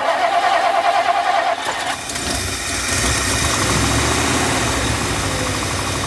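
1959 Lincoln V8 being cranked by its starter. The starter whine with its rhythmic cranking pulses gives way about two seconds in to a fuller, uneven firing as the engine tries to catch. The engine struggles to start because of a fuel delivery fault, which the owners put down to a weak or possibly dead fuel pump.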